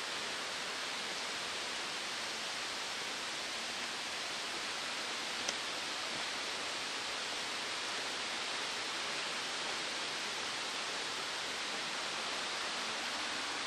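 Steady, even outdoor rushing noise, with a single faint tick about five and a half seconds in.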